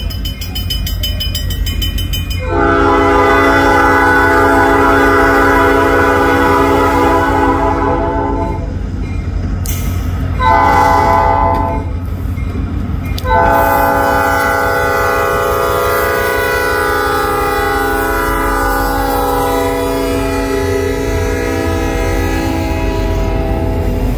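Diesel freight locomotive's air horn sounding several tones at once for a road crossing: a long blast, a short one, then a long one held for about ten seconds as the lead unit comes up. Under it, the low, steady rumble of the diesel engines.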